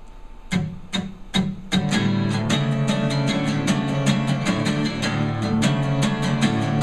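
Acoustic guitar strumming a song intro: a few separate strums in the first couple of seconds, then steady rhythmic strumming at about four strokes a second.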